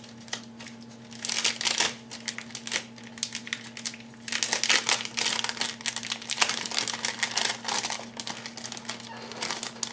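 Clear resealable plastic bag crinkling in irregular bursts as it is handled and pulled open, over a faint steady low hum.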